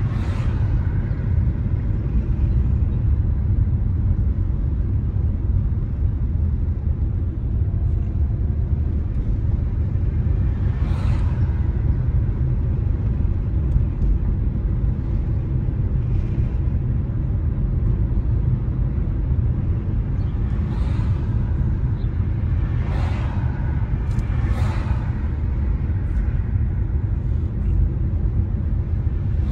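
A moving car's steady low rumble of tyres and engine on a town street, with other vehicles swishing past several times: once about a third of the way in, and three times in quick succession in the last third.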